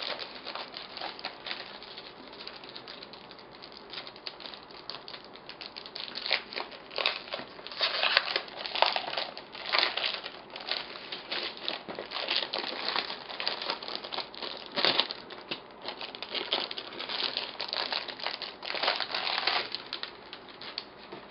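Clear plastic sleeve crinkling and rustling as a cardboard-backed paper pad is pulled out of it and handled, in irregular bursts that grow louder and busier about six seconds in.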